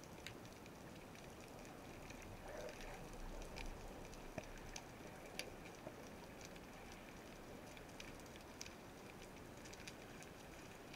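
Faint underwater ambience heard by an action camera in the sea: a steady hiss with scattered sharp clicks and crackles, a few louder clicks through the middle.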